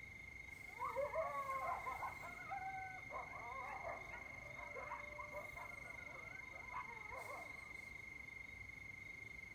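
Coyotes yipping and howling together in a burst of wavering, sliding yelps that starts about a second in, is loudest in the first couple of seconds and dies away after about seven seconds. A steady high cricket trill runs underneath.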